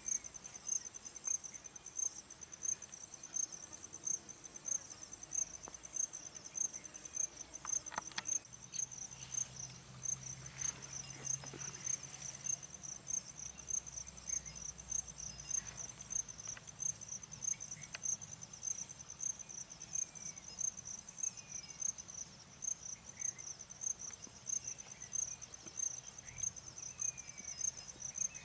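A cricket chirping steadily, a high-pitched pulse about two to three times a second, with faint short falling chirps in the background.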